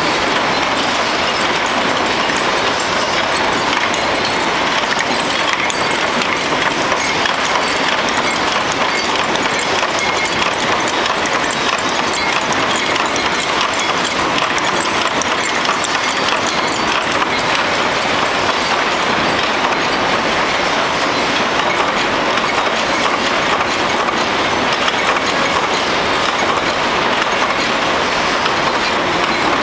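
Rows of mechanical punch presses running together as they stamp out small metal cups: a loud, steady, dense clatter of overlapping press strokes.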